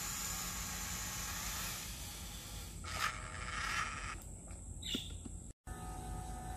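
A steady outdoor hiss with a brief louder scrape about three seconds in. After an abrupt cut near the end, the steady high whine of a small electric RC truck motor.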